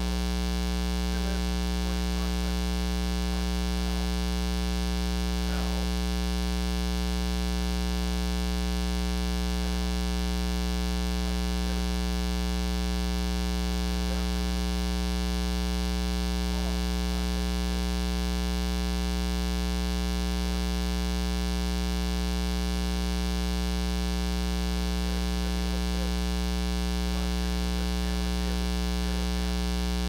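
Steady 60 Hz mains hum with a dense stack of buzzing overtones, unchanging throughout: ground-loop noise induced into the recording by powering the camera from its AC adapter while recording.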